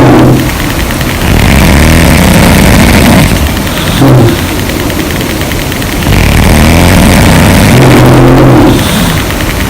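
Loud, low-pitched snoring from women asleep: long snores lasting two to three seconds, a little over a second in and again about six seconds in, with a short one near four seconds and quieter breathing between.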